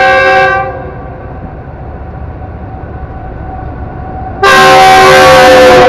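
Diesel locomotive's horn sounding twice as the train nears a level crossing, a warning to road traffic: a short blast that ends about half a second in, then a long blast starting about four and a half seconds in. Each blast is a chord of several notes at once. A low rumble from the approaching train runs between the blasts.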